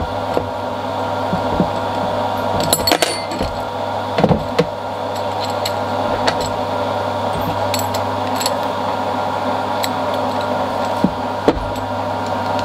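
Scattered small metallic clicks and clinks of a hex key, bolts and plastic Turgo cups being fitted to a drilled stainless steel disc, over a steady machine hum.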